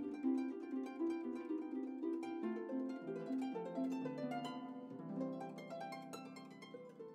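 Background music of plucked strings: a quick, light melody of short notes that each ring and die away.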